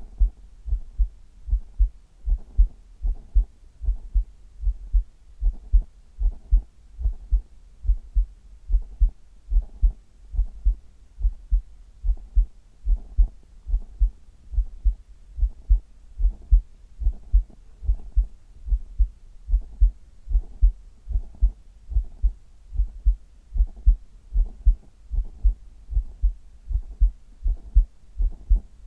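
Human heartbeat heard close up through the chest wall: a steady, even rhythm of deep paired thumps, lub-dub.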